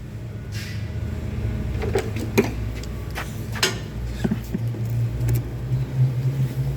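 A steady low motor hum with a few sharp clicks and taps scattered through it, as parts are worked loose by hand.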